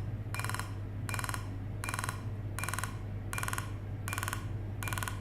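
A laser unit gives a regular, buzzy beep, seven in all, each about a third of a second long and about three-quarters of a second apart, over a steady low hum. Laser units sound such a tone while the beam is firing.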